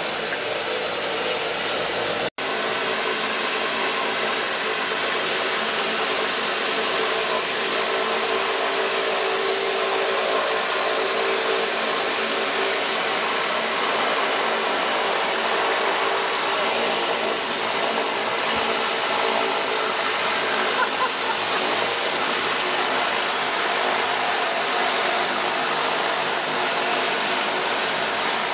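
De Havilland Canada DHC-6 Twin Otter's twin Pratt & Whitney PT6A turboprop engines running at low power while the seaplane taxis on the water, heard from inside the aircraft. It is a steady drone with a high whine that rises slightly near the end. The sound breaks off for an instant about two seconds in.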